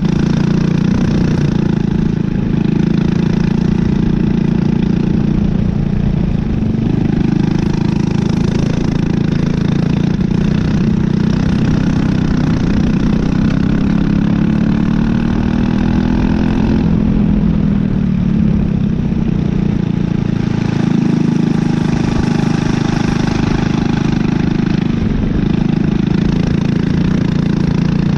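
Briggs & Stratton LO206 single-cylinder four-stroke kart engine heard onboard at speed. Its pitch rises and falls between about 3,300 and 4,300 rpm as the kart accelerates out of corners and lifts for the next.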